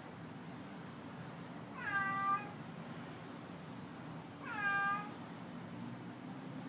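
Domestic cat meowing twice, about two and a half seconds apart; each meow is short, rising in pitch at the start and then holding level.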